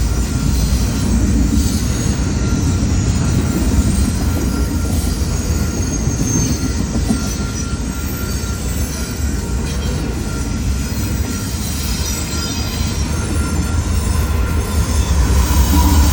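Train cars rolling past on the rails with a steady low rumble, and a faint high wheel squeal running through it.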